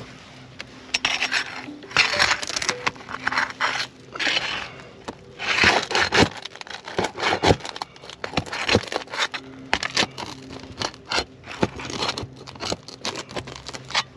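Asphalt roof shingles being pried up and unsealed by hand: irregular scraping and crackling with many sharp clicks and snaps. The shingles are too stiff to lift cleanly, and they crease and tear as they are bent up.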